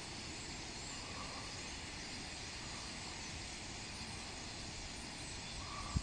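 Steady rushing noise of a huge flock of European starlings flying low overhead, the massed wingbeats of thousands of birds.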